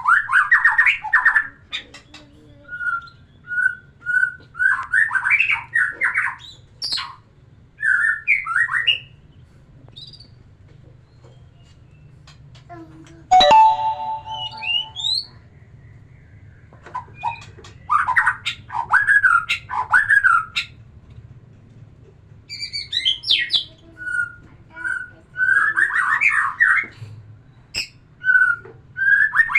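White-rumped shama singing: short bursts of varied whistled phrases every second or two, separated by brief pauses, over a faint low hum. About halfway through there is a sharp click and a harsher, lower call.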